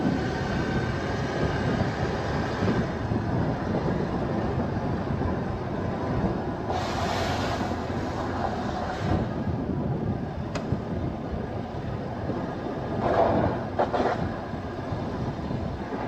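Car driving: steady road and tyre noise, with two louder rushes of noise about seven and thirteen seconds in.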